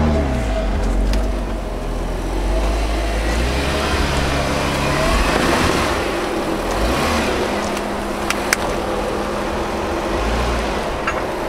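Jeep Wrangler Unlimited engine working at crawling speed, revving up and down as it climbs over logs, with tyres scrabbling on wood and dirt and a couple of sharp knocks about eight seconds in.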